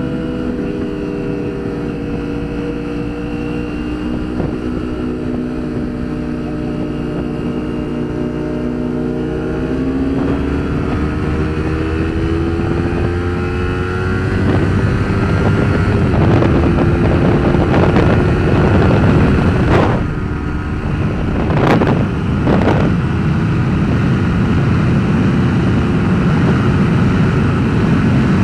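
Motorcycle engine running under way, its pitch rising and falling with the revs, with wind noise as heard inside a helmet. About halfway through it gets louder and rougher, with a few short sharp cracks a little later.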